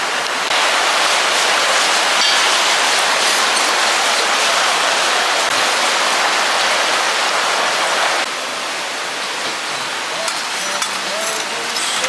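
Steady hiss of rushing water from rain and the valley stream. It gets louder about half a second in and drops back at about eight seconds.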